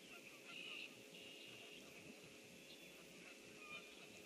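Faint wetland ambience from a pond: a steady high-pitched chorus with scattered short bird chirps over it.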